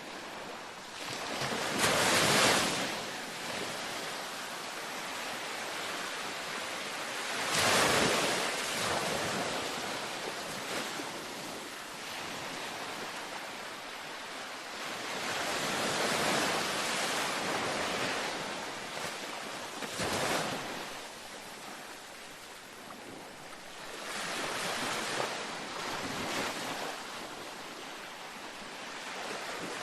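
Ocean waves breaking and washing up a beach, a steady surf hiss with swells rising and falling every few seconds, the strongest breakers about two and eight seconds in.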